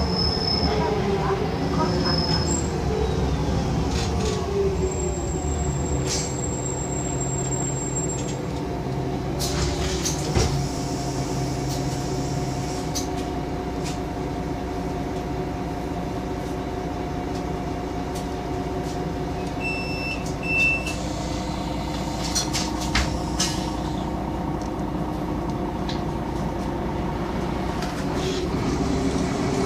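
Solaris Urbino 12 city bus heard from inside the passenger cabin while driving: the drivetrain's whine falls in pitch over the first few seconds, holds steady, then begins rising again near the end, over road rumble. A few knocks and rattles come through the cabin, and two short high beeps sound about two-thirds of the way through.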